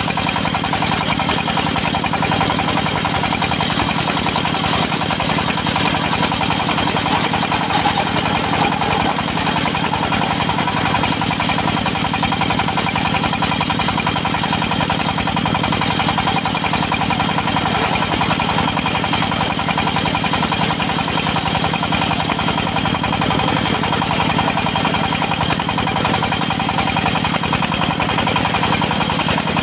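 Diesel engine of a portable circular-saw sawmill running at a steady speed.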